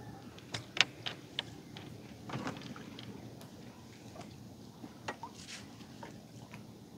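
Handling of a fishing net on a small wooden boat: scattered light knocks and clicks over a low wash of water.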